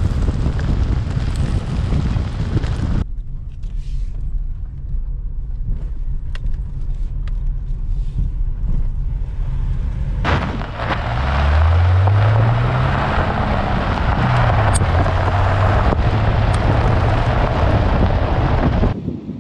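Subaru XV's flat-four boxer engine and tyres on a gravel track, heard from beside the front wheel, with wind on the microphone. A quieter stretch of low steady engine hum comes first, then about ten seconds in the engine revs up and settles as the car drives over loose gravel.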